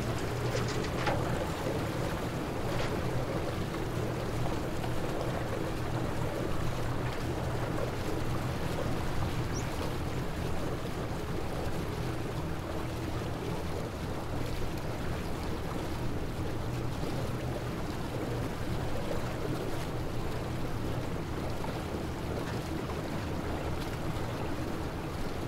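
Outboard motor running steadily, pushing a small flat-bottomed work boat through the water.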